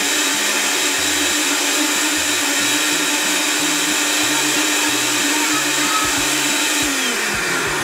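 Countertop blender running at full speed, churning a milk mixture with peas and chunks of sausage. The motor runs down in pitch as it is switched off near the end.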